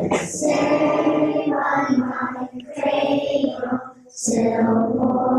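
A choir of young children singing together, holding long notes, with a short pause between two phrases about four seconds in.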